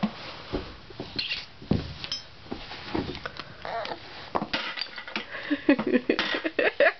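Toy pieces clattering into a Lincoln Logs canister and knocking on the floor: an irregular series of light clicks and knocks. A young child's wordless vocal sounds come in about five seconds in.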